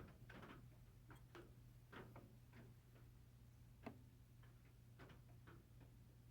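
Faint, irregular clicks and taps of a trapper pocket knife being handled, over a low steady hum.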